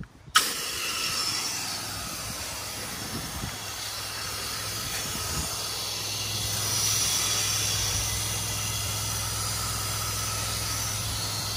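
Pressure-washer spray wand hissing as it sprays a downstreamed sodium hypochlorite and surfactant solution onto a house wall. It starts suddenly and loudly as the trigger is pulled, then runs as a steady spray hiss over a low steady hum.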